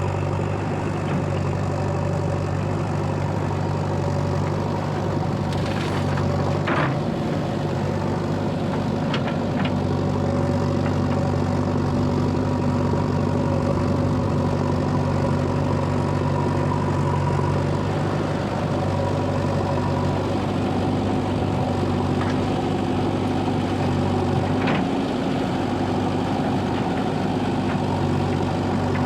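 Diesel machinery engine running steadily, with a few sharp metallic knocks about six, nine and twenty-five seconds in.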